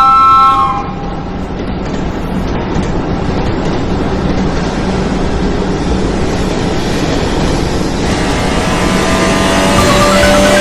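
Train running past with a loud, steady rumble and hum, growing a little toward the end. A short horn-like chord stops about half a second in.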